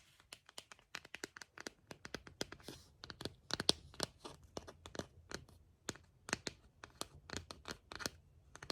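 Close-miked handling noises: many quick, irregular clicks, scratches and crinkles from hands working an object.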